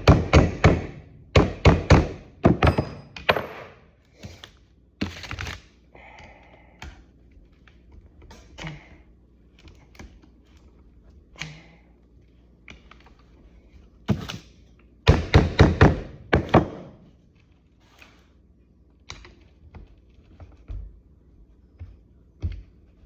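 Hammer tapping a socket to drive a kingpin cap down into a 1954 Chevrolet Bel Air front spindle, seating it low enough for its snap ring to fit over. The sharp knocks come in quick clusters, a run in the first few seconds and a heavier run about fifteen seconds in, with scattered lighter taps between.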